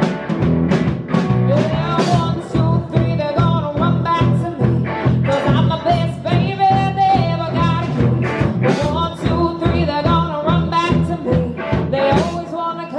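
Live rock band playing loudly, with electric guitar, bass and a steady drum beat and no words sung.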